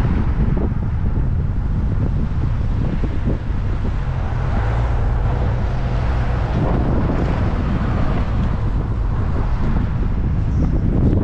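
A car driving, with steady road noise and a low rumble of wind on the microphone.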